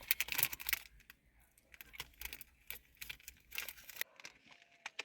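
Plastic wrapper being handled and torn, a run of sharp crackles and rustles that comes in several short clusters.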